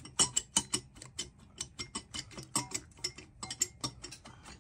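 A quick, irregular run of sharp metallic clicks and clinks, several a second and loudest in the first second, from hand work with metal engine parts as a cylinder is fitted down over the piston and rings of a Kawasaki KLX110 engine.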